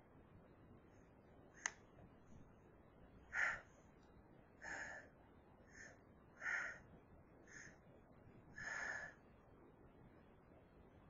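A person's short gasping breaths as a hayfever sneeze builds but does not come: six quick breaths over about six seconds, the first the loudest. A single sharp click comes shortly before them.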